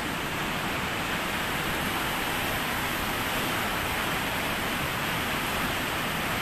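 Muddy floodwater rushing down a concrete stream channel after heavy rain, a steady, even roar of water.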